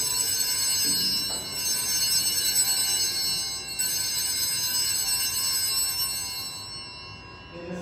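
Altar bells rung at the elevation of the host during the consecration: a cluster of small bells struck three times, the ringing fading out near the end.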